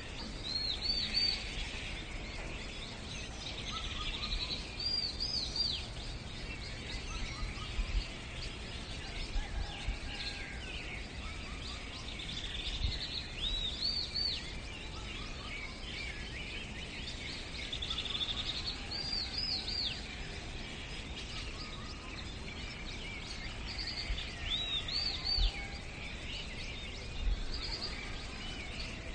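Birdsong over a steady outdoor background. One bird repeats short, high, arched notes in groups of two or three every few seconds, while other birds chirp faintly.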